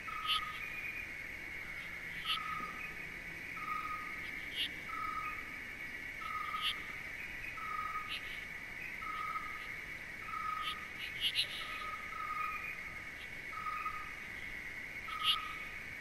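Night-time nature ambience: a steady insect trill under a short call repeated about every second and a quarter, with occasional sharp clicks.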